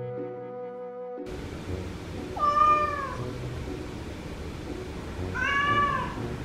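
Domestic cat meowing twice, two drawn-out calls that rise and fall, about three seconds apart, the first the louder. It is calling to its owner from behind a shut glass door. Background music cuts off about a second in.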